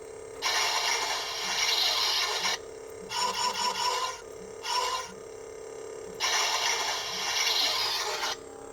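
Electronic sound effects from an RGB lightsaber's built-in speaker: a steady hum, broken four times by loud bursts of harsh, noisy sound, the first and last about two seconds long.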